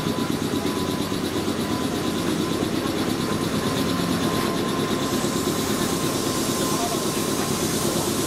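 Crowd chatter on a station platform beside a standing electric train, over the train's steady running hum with a thin high tone.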